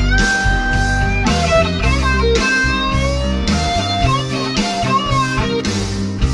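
Instrumental rock track: an electric guitar lead plays long, held notes with pitch bends over bass and drums.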